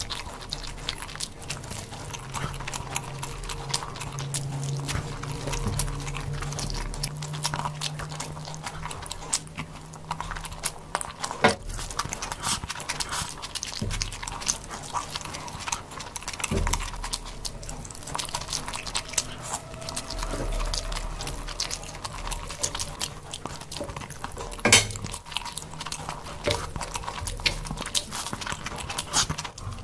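Close-up eating sounds of a person eating biryani and meat curry by hand: chewing and wet mouth clicks and smacks. A few louder sharp clicks stand out, the loudest about 25 seconds in.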